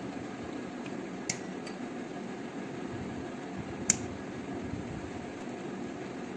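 Two light clicks of a serving spoon against a dish, one about a second in and a sharper one near four seconds in, over a steady background hum like a fan.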